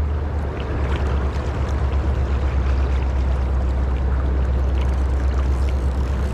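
Rushing river water over a steady low rumble.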